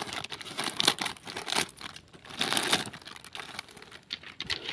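Plastic snack packet being cut open with scissors and crinkling as it is handled, in uneven bursts of rustling.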